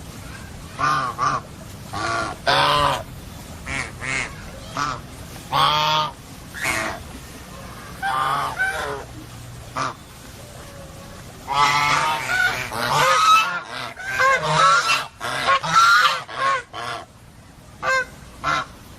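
Domestic geese honking: a series of separate harsh honks, then several birds calling together in a dense run about two-thirds of the way in, with a few last honks near the end.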